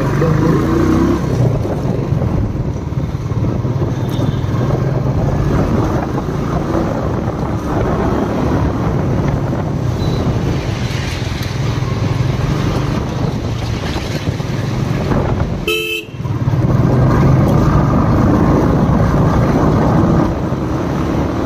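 Royal Enfield Bullet's single-cylinder engine running steadily under way, with vehicle horns honking in the surrounding traffic. A short pitched beep and a brief drop in sound come about sixteen seconds in.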